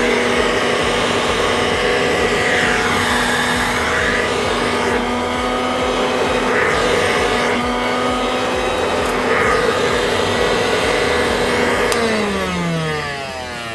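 Hoover Model 100 vacuum cleaner running with a steady motor hum, then switched off about twelve seconds in, its pitch falling as the motor winds down.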